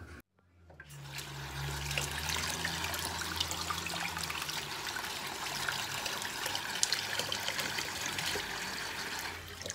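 Water running from a kitchen tap into a stainless steel sink and splashing over a pot being rinsed by hand, starting about a second in.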